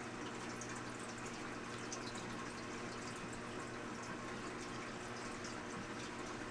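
Koi tank water bubbling and trickling steadily, with many small drip-like pops, over a steady low hum.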